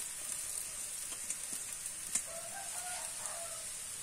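Boiled noodles tipped into a hot non-stick pan, with a faint steady sizzle and a light knock about two seconds in. A bird calls in the background just after the knock, for about a second.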